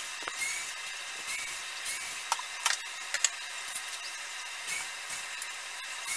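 Cabinet door hinge screws being worked loose with a hand screwdriver: small metallic clicks, scrapes and knocks of the hinge hardware against the wooden door, with a few sharper clicks two to three seconds in.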